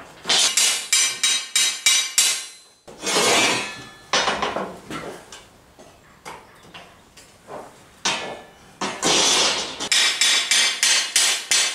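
A hammer knocking steel flat bars through slots cut in an upright steel bar, heard as runs of quick, sharp metal clanks. One longer ringing clang comes about three seconds in, lighter knocks follow, and a fast run of hammer blows sets in near the end.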